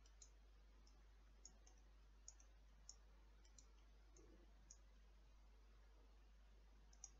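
Near silence with several faint, scattered computer-mouse clicks.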